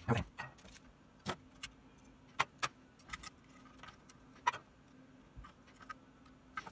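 Irregular small clicks and taps, one every second or so, as a wah pedal's circuit board and a short wire are handled and knocked against the open pedal housing.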